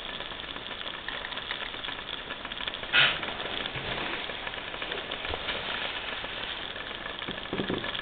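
Water heating in a metal cup over a homemade alcohol jet stove, hissing and crackling steadily as it comes toward the boil, with one louder crackle about three seconds in.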